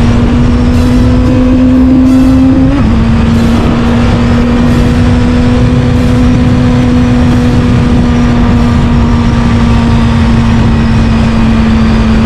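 Moped running steadily at speed, its motor giving a constant hum that climbs slightly and then dips a little about three seconds in as the throttle eases, with heavy wind rumble on the microphone.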